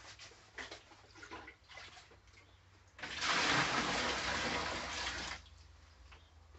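Tank water scooped up in a plastic tub and poured into a plastic transport tub: a steady gush of pouring water for about two and a half seconds, starting about three seconds in, after a few small splashes and knocks.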